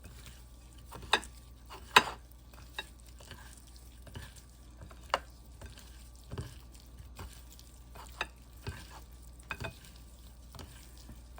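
Seasoning being mixed into raw shrimp in a bowl: irregular sharp clicks and knocks against the bowl, with the loudest two strikes about one and two seconds in.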